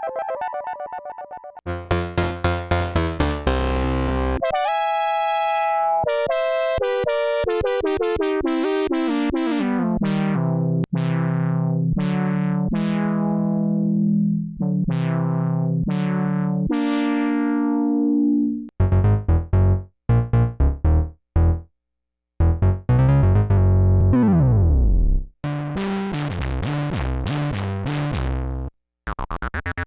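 Moog Subsequent 37 analog synthesizer playing a run of short, plucky notes, each one bright at the attack and quickly turning duller. In the first half the notes step down in pitch over several seconds. Later comes a string of staccato bass notes with a pitch glide downward, broken by two brief pauses.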